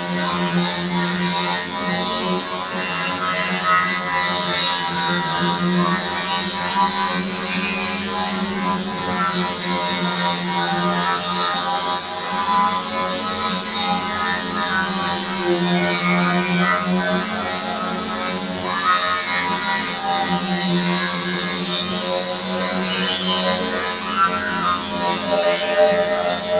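Dance music played loud over a loudspeaker sound system, running without a break.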